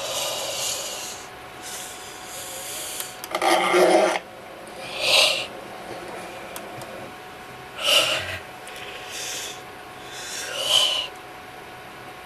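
About five short, breathy bursts from a man's mouth, like heavy exaggerated breaths, coming a couple of seconds apart. The loudest, about three and a half seconds in, has a bit of voice in it.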